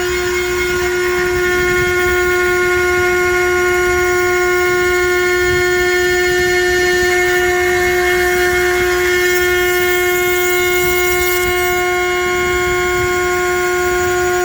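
A large CNC router's spindle running with a steady, unchanging high whine over a rushing noise.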